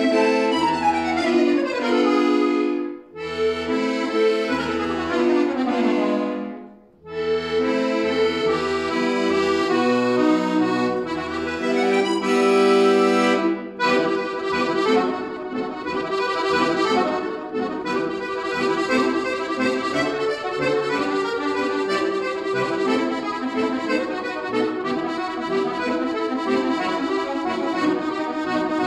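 Solo Scandalli piano accordion playing: falling runs in the right hand over held chords and low bass notes, with two brief breaks in the first seven seconds, then a faster, busier passage of quick notes from about halfway on.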